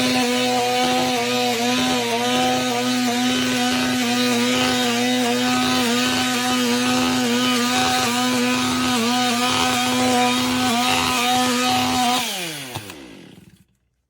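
A power tool's motor running at a steady pitch with brief regular dips, like a saw under load, then switched off and spinning down to a stop near the end.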